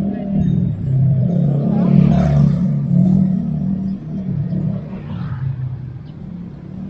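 Motorcycle engine running close by, its hum rising to a peak about two seconds in and then fading away.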